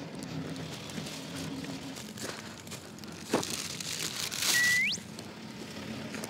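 Crinkling and rustling. About four and a half seconds in, a louder rush of noise comes with a comic whistle sound effect that holds one note and then slides sharply upward.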